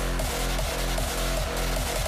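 Background music with a steady beat and bass line.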